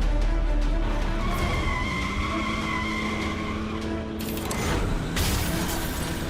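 Cartoon car-chase sound effects over background music: vehicle engines and a drawn-out tyre screech, then two sudden noisy bursts about four and five seconds in.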